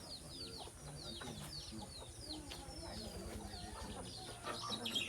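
Domestic chickens calling: a steady run of short, high, falling peeps several times a second over lower clucking.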